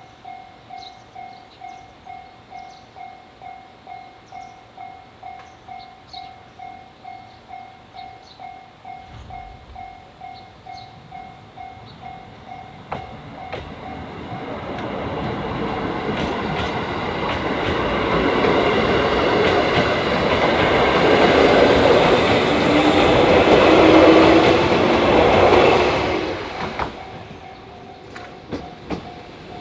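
Japanese railway level-crossing alarm ringing in a steady pulse, about three dings every two seconds. About halfway through, a train comes up and passes at its loudest, its wheels clacking over the rail joints, then cuts away suddenly near the end, leaving the alarm still ringing.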